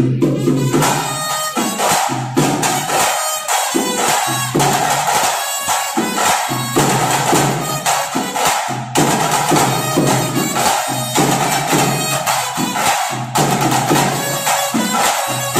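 Live traditional music for a dance: a held melody on a wind instrument over a steady, fast drum and percussion beat.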